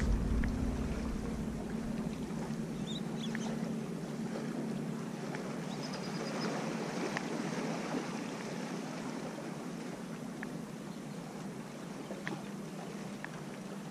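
Steady wash of lake water and wind around a wading angler, with a faint steady low hum underneath and a few light ticks scattered through it.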